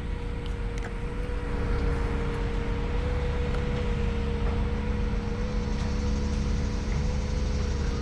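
Steady drone of tractor engines working on the land-clearing site: a constant low rumble with an even hum on top.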